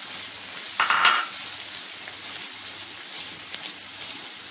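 Onion paste and ginger garlic paste sizzling in hot oil in a non-stick wok while a spatula stirs it, briefly louder about a second in.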